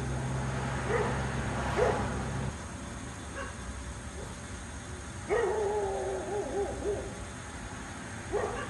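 A dog barking in short rising yips twice, then a longer wavering whine about five seconds in. Under it is a low steady rumble that drops away about two and a half seconds in.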